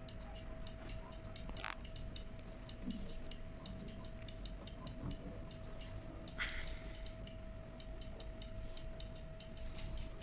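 Bench-test stepper motors under Mach3 control stepping slowly, giving a regular ticking of about three to four clicks a second over a faint steady whine. Two brief swishes break in, one early and one past the middle.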